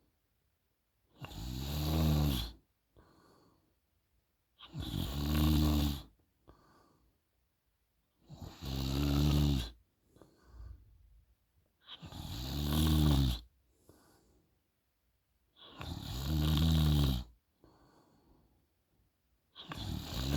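A sleeping young woman snoring in a steady rhythm: six loud snores, each about a second and a half long and roughly four seconds apart, each followed by a shorter, fainter breath.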